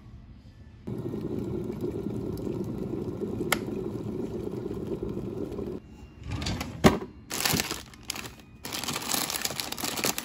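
Glass electric kettle heating water: a steady low hiss that stops suddenly. Then a wooden drawer is opened with a sharp knock, and hands rummage through tea packets, their plastic and foil wrappers crinkling.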